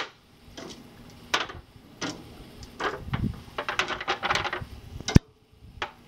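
Metal barbecue tongs clacking against a smoker's grill grate and an aluminium foil pan as beef ribs are lifted off into the pan: a series of sharp clicks and clatters, thickest about three and a half to four and a half seconds in, with one loud click just after five seconds.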